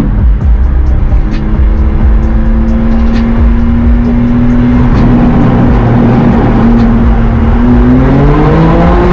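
Car engine running loudly at a steady pitch, then rising in pitch over the last second or so as it revs and accelerates.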